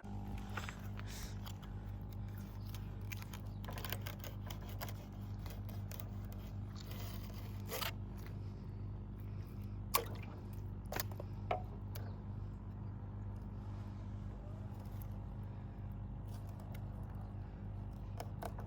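A steady low mechanical hum, with scattered short scrapes and clicks over it.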